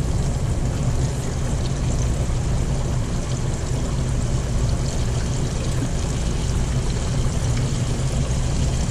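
Floured shrimp frying in hot oil in an electric deep fryer set to 335°F: a steady sizzle and bubbling, with a low hum underneath.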